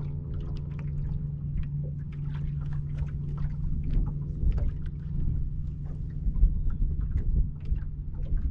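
Small waves slapping against a fishing boat's hull in uneven knocks, over wind rumble on the microphone and a steady low hum that fades near the end.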